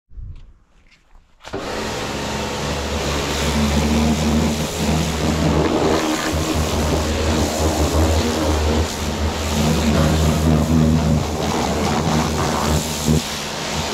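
Pressure washer running and spraying: a steady motor hum under the hiss of the water jet, starting abruptly about a second and a half in.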